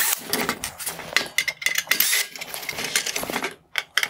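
A cordless drill-driver backing T20 Torx screws out of a plastic headlight housing: short runs of the motor among many sharp clicks and small metallic clinks from the bit, the screws and the plastic.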